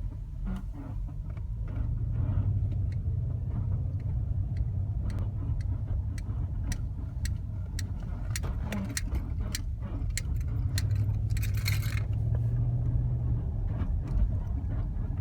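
2006 Range Rover Supercharged creaking: many short, sharp creaks and clicks, coming irregularly and thickest in the middle, over the vehicle's steady low rumble. A brief hiss about three-quarters of the way through.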